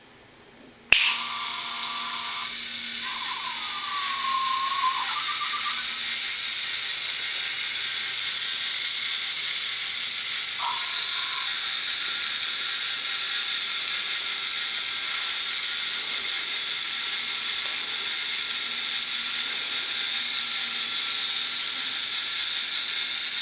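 Lego Mindstorms NXT servo motors and plastic gear train whirring steadily as they spin the helicopter model's rotor blades, switching on abruptly with a click about a second in.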